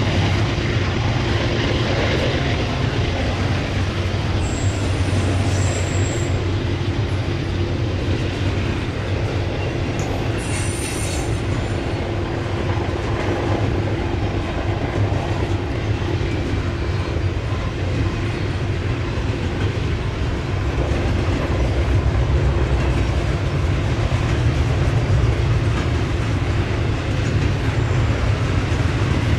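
Double-stack intermodal container well cars rolling past steadily on the mainline: a continuous rumble of steel wheels on rail, with two brief high-pitched wheel squeals about 5 and 11 seconds in.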